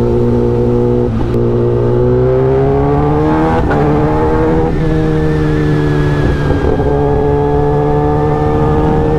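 Kawasaki Ninja ZX-10R inline-four engine running through an SC Project S1 full-system exhaust under way. Its pitch climbs for a couple of seconds, breaks and steps around four seconds in, then holds nearly steady.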